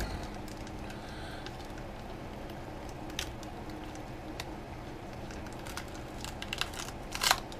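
A few small clicks and scrapes as the glued battery is forced out of an iPhone 6S. A louder short cluster of clicks comes near the end, over a steady low background hum.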